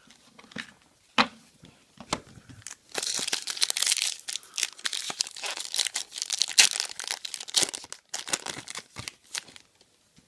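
A Topps Chrome football card pack's wrapper being torn open and crinkled. Scattered light clicks and rustles lead into a dense run of crinkling over the middle few seconds, then thin out.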